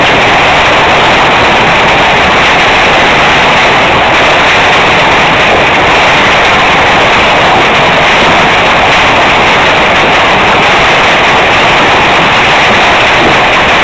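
Hail coming down hard, a dense, unbroken clatter of hailstones striking the patio and surrounding surfaces. It is very loud and steady throughout.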